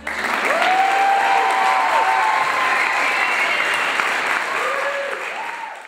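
Audience applauding and cheering with whoops after a solo song, starting suddenly and fading out near the end.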